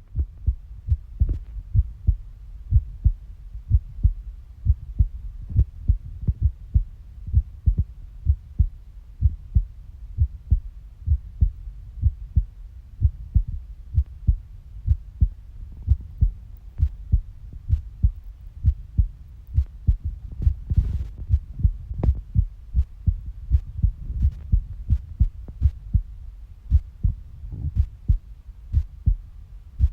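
A human heartbeat heard close up: a steady run of low, paired lub-dub thumps. About two-thirds of the way through there is a brief scratchy noise.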